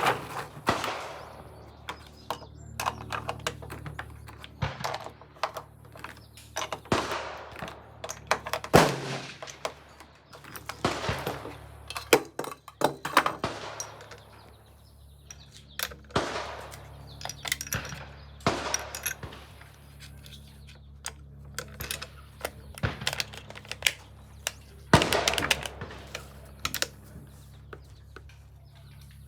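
Rifle shots fired every few seconds, the loudest with a short echoing tail, others fainter, with smaller clicks in between.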